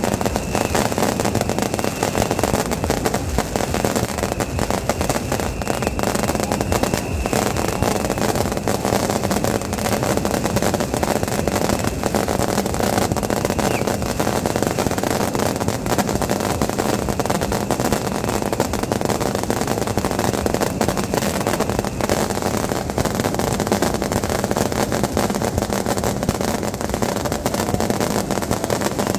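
Fireworks and firecrackers going off in a continuous dense barrage of rapid crackling pops, with a faint thin whistle in the first several seconds.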